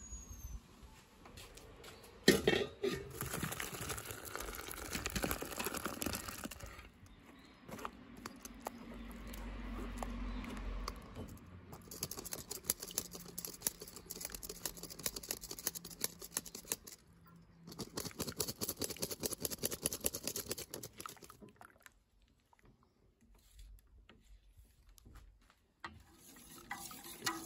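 Wet cooking sounds from a pot of thick ripe-persimmon mash: bubbling and sloshing as it boils, and dripping and scraping as it is pressed through a mesh sieve and stirred with a wooden spoon. There is a sharp knock about two seconds in.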